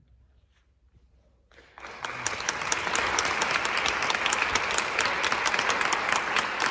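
A short hush, then audience applause breaks out about two seconds in and continues as steady clapping.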